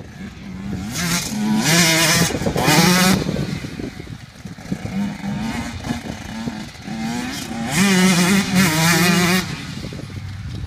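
KTM 150 SX two-stroke motocross bike revving hard twice, about a second in and again near eight seconds, with the engine running lower in between.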